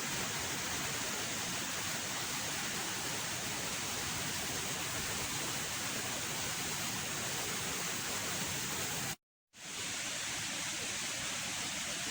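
Waterfall rushing: a steady, even roar of falling water with no change in pitch. It cuts out for about half a second some nine seconds in, then resumes.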